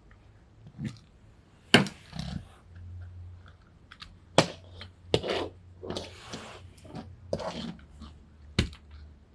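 Irregular sharp taps and knocks from objects being handled, a few seconds apart, with softer rustling between them.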